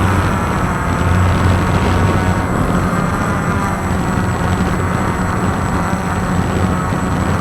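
Walkera QR X350 quadcopter's electric motors and propellers running steadily in flight: a constant low hum over a broad rushing noise, with a thin high whine above.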